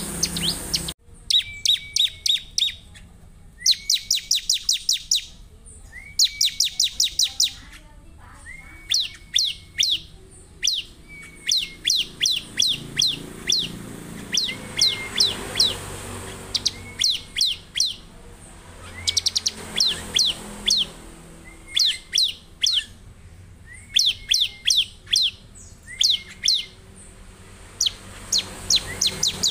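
Bar-winged prinia (ciblek) singing: rapid bursts of high, sharp chirps, each burst about a second long, repeated every second or two, with a short lower note between bursts.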